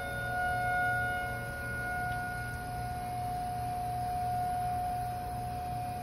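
Outdoor tornado warning siren sounding one steady tone, its loudness swelling and ebbing slowly; this is the scheduled monthly test, not a real warning.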